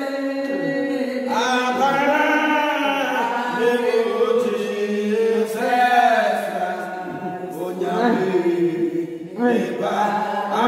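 Several voices chanting together in long held, slowly shifting tones.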